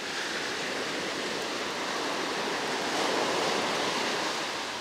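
Ocean surf breaking and washing up a sandy beach: a steady rush of foam that swells louder about three seconds in as a wave comes up the sand, then eases off near the end.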